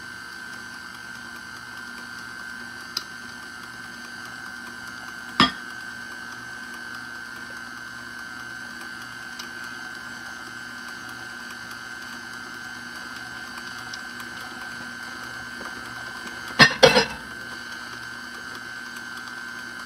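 KitchenAid Classic tilt-head stand mixer running steadily in a glass bowl, mixing dry ingredients into banana bread batter, with a sharp knock about five seconds in and a short double clatter near the end.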